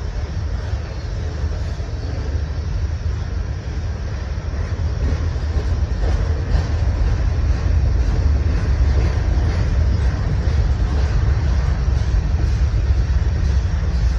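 Freight cars loaded with trash containers rolling past on steel wheels: a steady low rumble and rattle on the rails that grows a little louder about halfway through.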